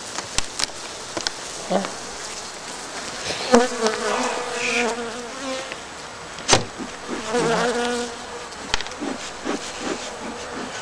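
Honeybees buzzing at an open hive, with single bees flying close past in two louder passes about three and a half and seven and a half seconds in. A few sharp knocks, the loudest about six and a half seconds in.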